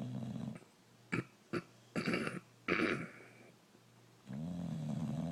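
A sleeping Boxer dog snoring: a low buzzing snore at the start and another, over a second long, about four seconds in. Several short, sharper breathy noises come in between.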